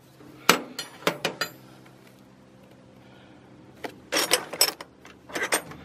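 Steel hand wrenches clinking against each other and the drawer as they are picked up and set down: a few sharp clinks within the first second and a half, then another cluster about four seconds in and a couple more near the end.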